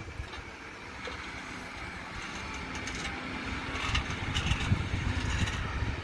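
Two John Deere tractors working under load as they pull reversible ploughs through the soil, getting louder about halfway through as they come past, with some clatter from the ploughs. Wind buffets the microphone throughout.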